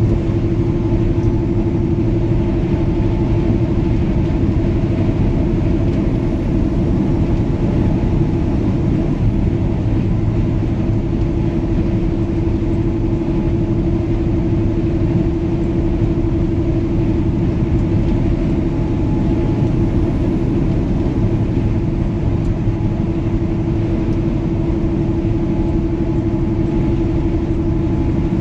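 Steady drone of a semi truck's engine and road noise heard inside the cab while cruising at highway speed, with a constant low hum.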